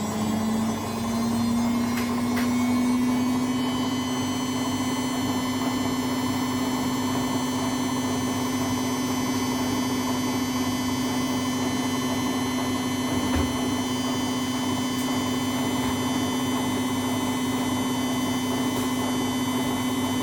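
Whirlpool washing machine spinning its drum in the spin cycle of its test mode: a steady motor whine and hum. The whine rises in pitch over the first few seconds as the drum comes up to spin speed, then holds level.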